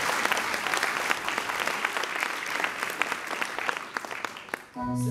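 Audience applauding, the clapping thinning out over several seconds; near the end music starts up with held notes.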